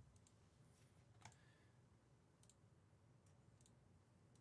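Near silence: room tone with a few faint, isolated clicks, the clearest about a second in.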